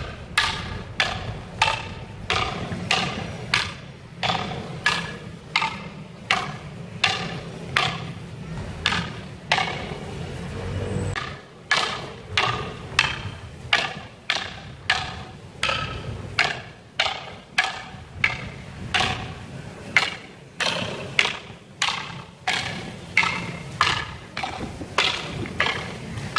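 Wooden fighting sticks clacking together in a Filipino double-stick (eskrima/arnis) partner drill, one crisp knock after another at about two strikes a second in an even rhythm.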